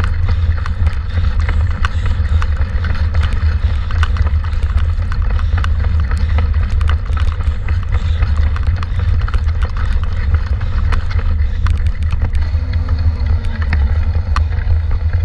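Wind buffeting and ride noise on a handlebar-mounted camera as a mountain bike rolls fast over a rough dirt trail: a steady low rumble with frequent sharp clicks and rattles from the bike.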